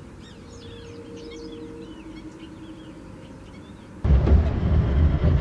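Many small birds chirping in quick short calls over a faint steady hum; about four seconds in, a loud low rumble cuts in abruptly.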